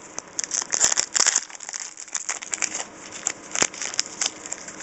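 2009 Topps Mayo football pack wrapper crinkling in the hands as it is opened: a run of irregular, sharp crackles.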